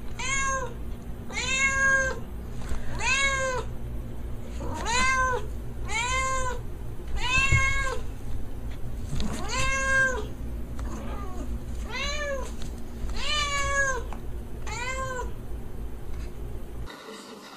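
Calico cat meowing over and over: about a dozen short meows, roughly one a second, each rising and then falling in pitch.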